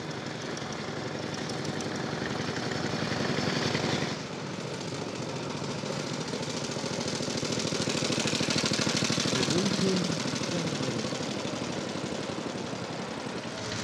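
Veteran motorcycle engines running with a rapid, even beat: first a 1913 Triumph 499cc single riding past, then, after a break about four seconds in, a 1913 FN 285cc single approaching, loudest about ten seconds in as it passes, then fading away.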